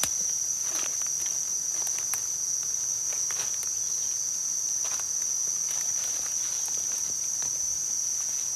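Steady, high-pitched drone of forest insects, with irregular crackling footsteps through dry leaf litter and undergrowth.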